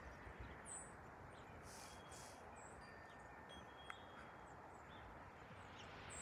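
Faint, steady, distant rumble of a Bombardier CRJ-900 twin-turbofan regional jet flying high overhead, with a few short bird chirps.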